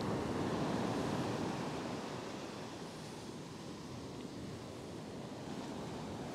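Surf washing up a sand beach: a swell of wave wash over the first two seconds, easing to a steady rush.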